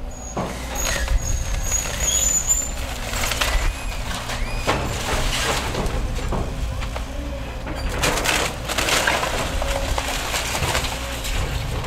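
Excavator engine running steadily while its arm breaks up a demolished house, with repeated crashes, cracking and splintering of wood and debris. A thin high squeal sounds for the first few seconds.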